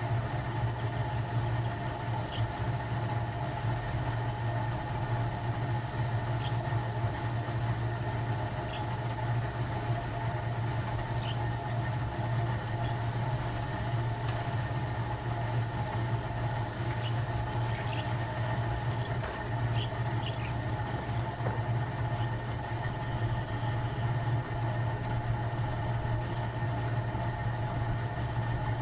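Steady mechanical drone with a strong low hum, unchanging throughout, with a few faint short high ticks now and then.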